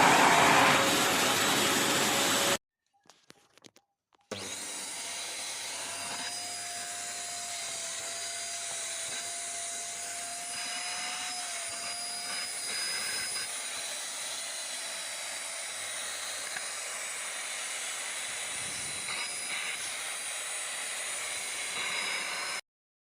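Midea MVC-SC861 cordless stick vacuum cleaner running loudly, stopping about two and a half seconds in with a few faint clicks. It then runs again more quietly with a steady whine and cuts off suddenly near the end.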